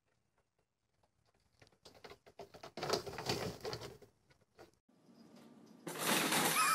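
A fabric pet play tunnel rustling and crinkling as an animal scrambles through it, with light taps and pattering, loudest from about three to four seconds in. After a cut, a second loud burst of noise starts near the end.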